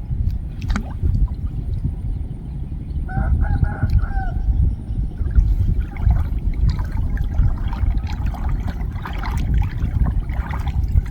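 A chicken clucking: a run of about five short calls about three seconds in, with more scattered calls later, over a steady low rumble.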